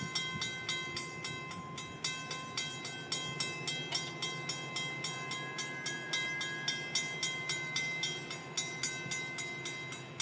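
Railroad crossing warning bell ringing in rapid, even strikes, about three to four a second, as the crossing gates lower to warn of an approaching train.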